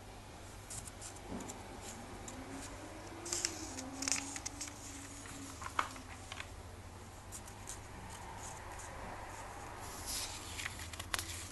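Glossy comic book pages being turned by hand: several quick paper rustles and flicks, clustered about a third of the way in and again near the end, over a low steady hum.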